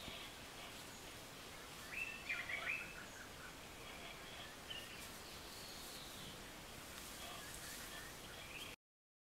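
Outdoor natural ambience: a steady background hiss with scattered bird chirps, the loudest a cluster of quick chirps about two to three seconds in. The sound cuts off suddenly near the end.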